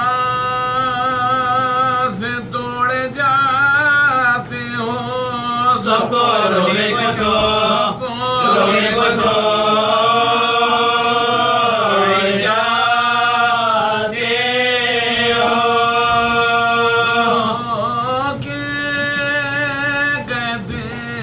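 Unaccompanied male chanting of an Urdu marsiya, sung in long, drawn-out melodic lines whose pitch wavers and bends.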